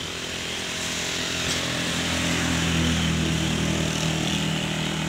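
A motorcycle engine running close by, growing louder over the first few seconds and then fading as it passes.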